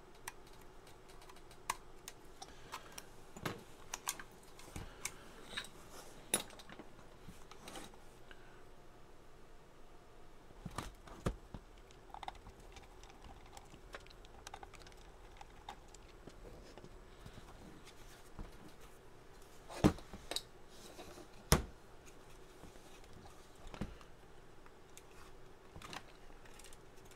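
Scattered clicks, taps and knocks of plastic and metal as a Vertex VX-3200 mobile radio's chassis and faceplate are handled and taken apart by hand. Two sharper knocks come about two-thirds of the way through.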